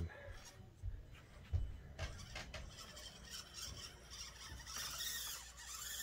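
Axial SCX24 Deadbolt micro RC crawler making its way over the course: a quiet, scratchy scraping noise, with two soft knocks in the first two seconds.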